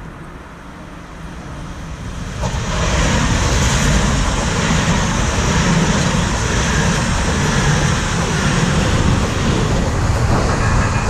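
An İZBAN electric commuter train, a CAF-built multiple unit, approaches and passes close by on the track. The noise grows over the first couple of seconds, turns suddenly loud about two and a half seconds in as the train reaches the spot, and stays loud and steady while the carriages go by.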